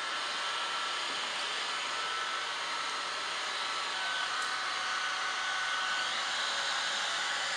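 Handheld electric heat gun running steadily, a constant fan-and-air rush with a faint whine, blowing on vinyl wrap to soften it.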